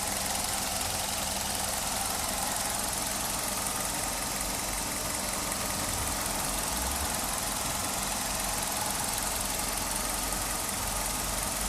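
Suzuki Solio Hybrid MX's 1.2-litre four-cylinder petrol engine idling steadily.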